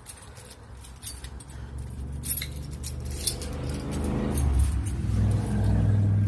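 A bunch of keys jangling and clinking, over a low hum that grows steadily louder through the second half.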